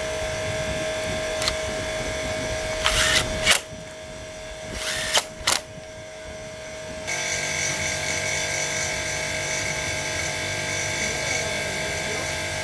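Small petrol engine running steadily, dropping away about three and a half seconds in, with a few sharp clicks. About seven seconds in, a steady running sound comes back and holds.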